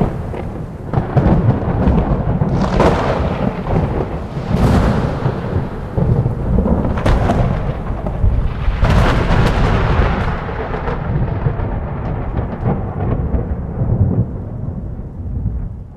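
Thunder: a long rolling rumble with several sharp crackling peals, about 3, 5, 7 and 9 seconds in, that then slowly dies away.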